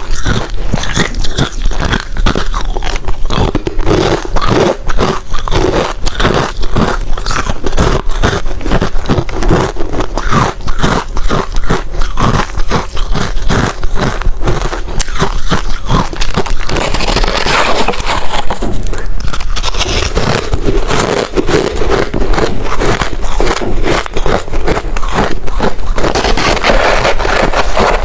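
Hard ice being bitten and chewed close to the microphone: a steady run of rapid, loud crunches and crackles, with heavier crunching twice, about two-thirds of the way in and near the end.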